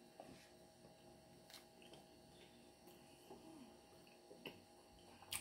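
Near silence: a faint steady electrical hum with a few soft clicks, the clearest one just before the end.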